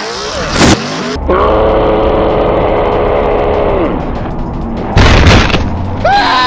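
Off-road truck crashing in a mud pit: a short impact about a second in and a heavier, booming crash about five seconds in, with a long steady pitched tone and music between them.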